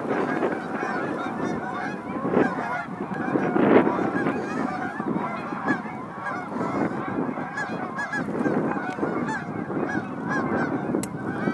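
A large flock of Canada geese honking in flight, with many calls overlapping in a continuous chorus.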